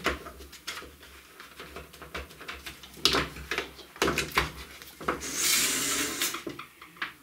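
Handling noise from a Dremel 3000 rotary tool on a wooden table: scattered knocks and clicks, then a stretch of rubbing about five seconds in.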